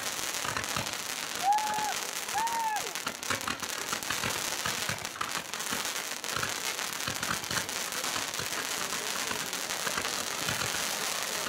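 Fireworks display: rising comets and small star bursts give a continuous dense crackle of many tiny pops. Two brief tones sound about one and a half and two and a half seconds in.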